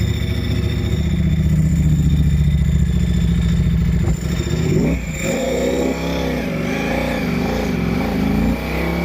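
Ducati Panigale V4R's V4 engine running through an FM Projects titanium racing exhaust: a steady idle, then from about four seconds in the note rises and wavers up and down before settling again near the end.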